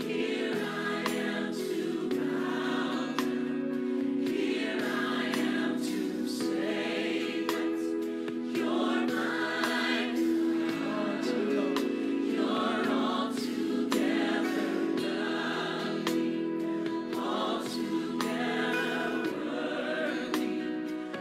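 Gospel choir singing, with sustained chords beneath the voices.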